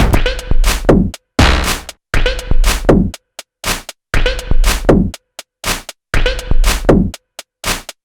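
Sequenced electronic drum pattern of Moog DFAM percussion samples played from an Elektron Model:Samples: gritty, noisy synth drum hits, some ending in a quick falling pitch sweep, with short silent gaps between the groups of hits.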